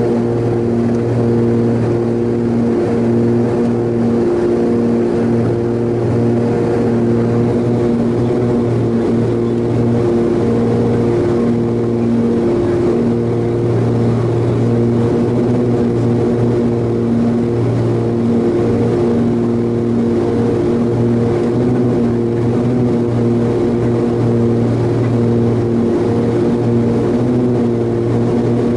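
Light propeller airplane's piston engine and propeller running steadily in cruise, heard inside the cabin as an even hum at a constant pitch.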